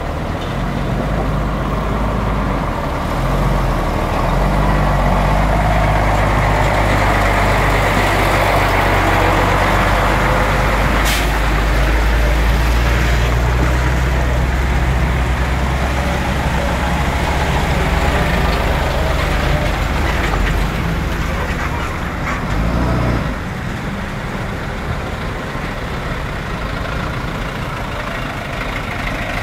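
Heavy diesel trucks' engines running as they crawl through floodwater, loudest through the middle and dropping off suddenly about 23 seconds in, with one short sharp noise about 11 seconds in.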